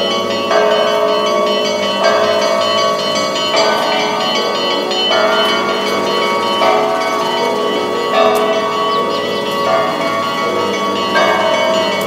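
Russian Orthodox church bells ringing in the convent's bell tower. A set of bells is struck about every second and a half, with smaller bells sounding between the strokes, and each strike rings on under the next.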